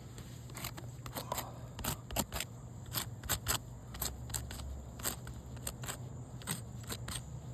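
Irregular short scrapes and scuffs on asphalt roof shingles, about a dozen over six seconds, with crickets chirping steadily behind.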